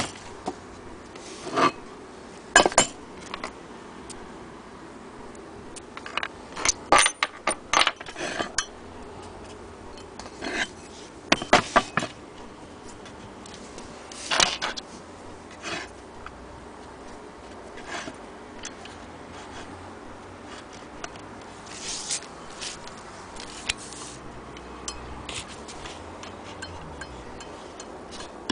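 Irregular knocks, clatter and scraping from the wooden base of an antique Willcox & Gibbs hand-crank sewing machine being handled and turned over on a table. The knocks come in clusters, the busiest stretches about six to eight seconds in and again around eleven to twelve seconds in.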